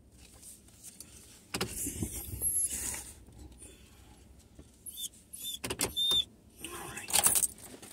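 Rustling and clicks of someone moving about in a vehicle's cab, with a few short high beeps about five and six seconds in.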